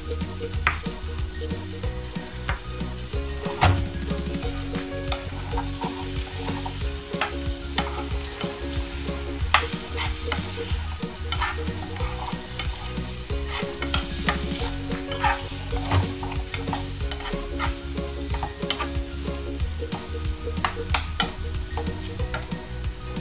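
Meatballs sizzling in a frying pan, with a metal spoon clicking and scraping against the pan again and again as they are turned.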